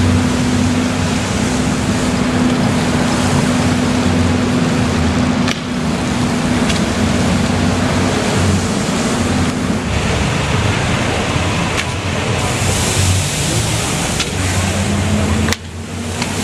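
Police WaWe 10000 water cannon truck firing its high-pressure jet: a loud steady rush of spraying water over the low hum of the truck's engine and pump. The hum fades about ten seconds in and comes back near the end.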